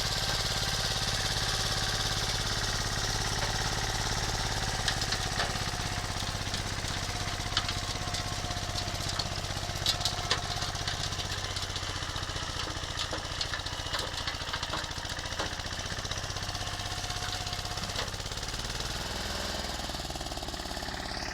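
Engine of an old Agria walking tractor running steadily under ploughing work, with scattered sharp clicks and clanks in the middle stretch. The engine note shifts and drops about nineteen seconds in.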